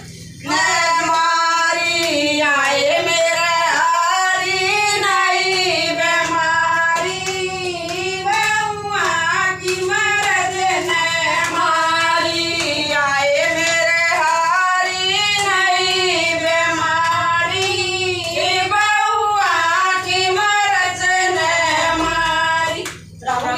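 A woman singing a bhajan, a Hindi devotional song, with hands clapping along. The singing breaks off just before the end.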